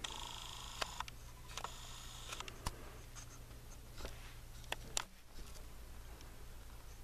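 Handling noise from a handheld camera: a steady low hum with scattered sharp clicks and rubbing. Twice in the first two and a half seconds there is a faint, high, thin sound.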